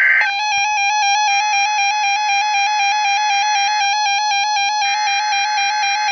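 Emergency Alert System attention signal: a steady two-tone electronic alert tone held without a break. It starts a fraction of a second in, right after the last screech of the alert's digital header data tones.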